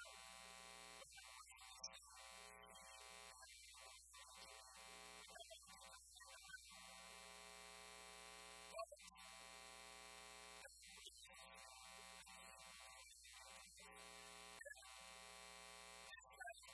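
Near silence: a faint steady electrical hum and buzz, with no audible speech.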